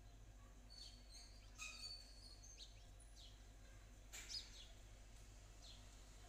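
Faint background bird calls: several short, high, falling chirps a second or so apart, the strongest about four seconds in, over a low steady hum.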